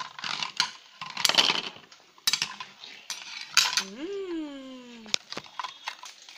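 Hard plastic toy food pieces clicking and clattering against each other and a toy bowl as they are handled. About four seconds in, a person's voice makes one drawn-out sound that falls in pitch.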